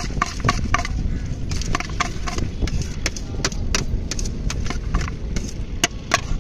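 A long steel spoon clinks over and over against the sides of a stainless steel mixing tin as jhalmuri is stirred and tossed. The clinks come irregularly, about two to three a second, each with a short metallic ring, and the loudest falls near the end.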